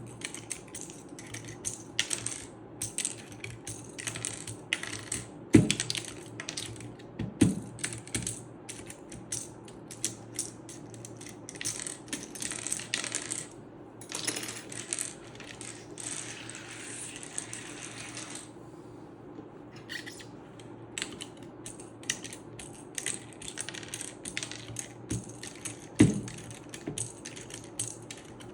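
Small plastic keycaps clicking and clattering as they are handled and pressed onto a mechanical keyboard's switches, with three louder knocks and a few seconds of rustling about halfway through.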